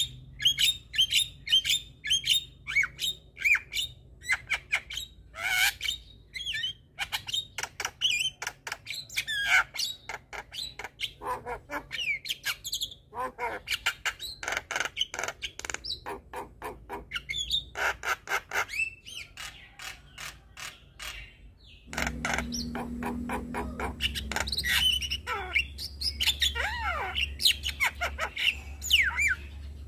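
Javan myna (jalak kebo) calling in a rapid, continuous run of chirps, whistles and harsh squawks. About 22 s in, the recording changes and a steady low hum runs beneath the calls.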